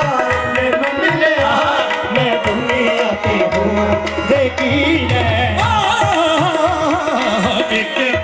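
Live qawwali music: tabla drumming under a wavering, ornamented sung melody, played loud through the loudspeaker stacks.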